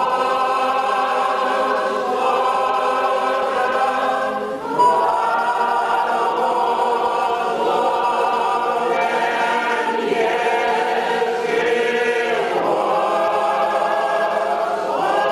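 Church choir singing an Orthodox liturgical hymn a cappella, holding sustained chords that change every few seconds, with a short break for breath about a third of the way in and again near the end.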